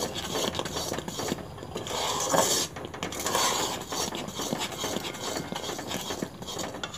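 A spatula scraping and stirring through sugarcane jaggery syrup boiling in a metal karai. The syrup is thickening but still needs more boiling.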